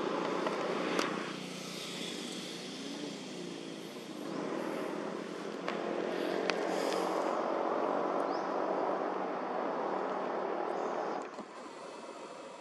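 A steady motor hum with a few sharp clicks; the hum drops away about eleven seconds in.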